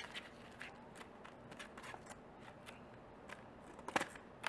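Faint rustling and small clicks of a craft package being handled and opened by hand, with a sharper crinkle about four seconds in.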